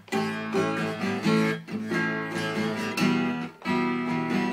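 Steel-string acoustic guitar strummed in a steady rhythm, playing chords of a song's instrumental passage. Brief breaks in the strumming come about a second and a half in and again past three seconds, at the chord changes.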